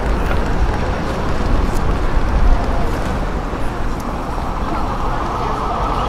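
City crowd ambience: a steady wash of indistinct voices mixed with road traffic over a low rumble.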